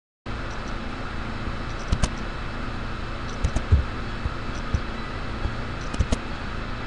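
Steady electrical hum and hiss of the recording setup, with a few clicks and low thumps about two, three and a half and six seconds in.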